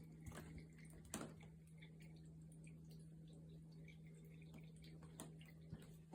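Near silence: room tone with a steady low hum and a few faint ticks, the clearest about a second in.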